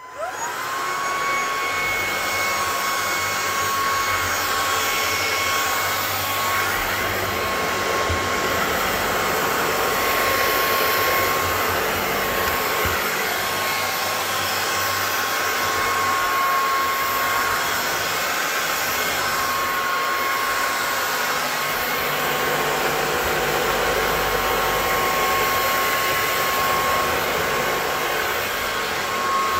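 Bissell IconPet Pro cordless stick vacuum running on high power, switched on at the start: its motor whine rises to a steady high pitch within about a second, over a continuous rush of airflow.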